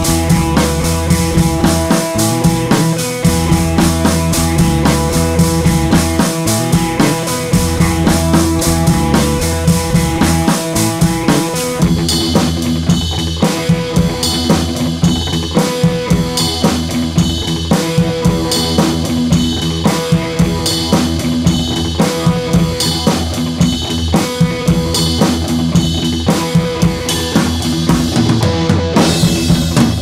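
Background music with a drum kit keeping a steady beat; the drums turn brighter and sharper about twelve seconds in.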